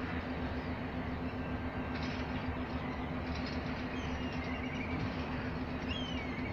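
Diesel-powered passenger train being pushed slowly in reverse, its engine giving a steady low drone over the rumble of the coaches. A few faint high squeaks come about four and six seconds in.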